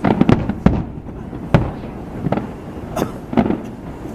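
Aerial fireworks going off in a string of sharp bangs, about seven or eight in four seconds, some close together, with a low rumble between them.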